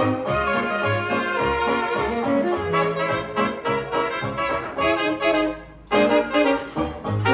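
Live hot jazz band playing: horns and reeds carry the tune over a steady banjo and string-bass beat. About five seconds in, the band drops out for a brief break, then comes back in together.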